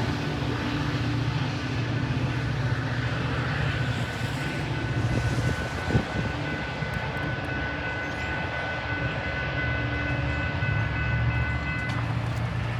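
Metra commuter train's diesel locomotive running with a steady low rumble. Faint steady high-pitched tones ring from about a quarter of the way in until near the end, with one short click near the middle.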